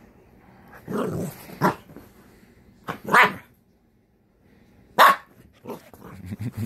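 Small dog barking and growling in play: a growl about a second in, then three sharp barks a second or two apart, and low grumbling near the end.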